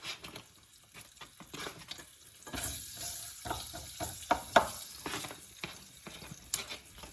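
Microwave-popcorn kernels and butter tipped into hot olive oil in a pan: the oil sizzles up from about two and a half seconds in, among scattered clicks and knocks of kernels and utensils against the pan.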